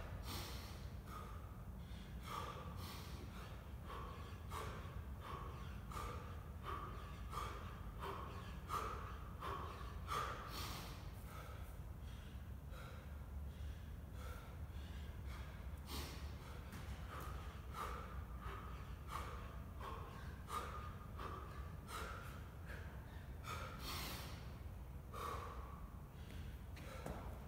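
A man breathing hard, short heavy breaths following one another about every second: he is out of breath from an all-out kettlebell workout done without rest.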